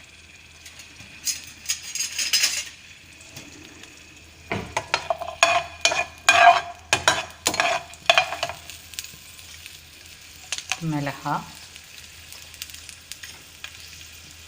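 Small onions (shallots) frying in ghee in a pan, sizzling, while a spatula stirs and clatters against the pan in two bouts, a short one and a longer one in the middle.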